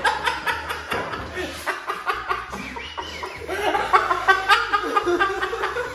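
Several people laughing hard together in overlapping, irregular bursts.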